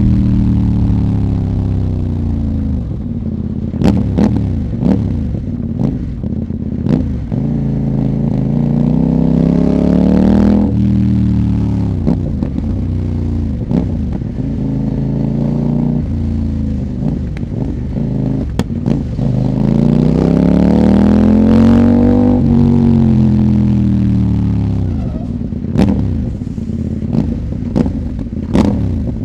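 CFMOTO 800NK parallel-twin engine, run without its catalytic converter through the stock muffler, revving up and down under way. About ten seconds in the pitch drops abruptly, like a quickshifted gear change. Exhaust pops sound as the revs fall, especially a few seconds in and near the end.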